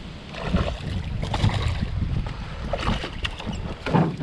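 A hooked bass being brought in and lifted out of the pond: irregular splashing and rustling of water and weed, with a louder splash about four seconds in as the fish comes out of the water.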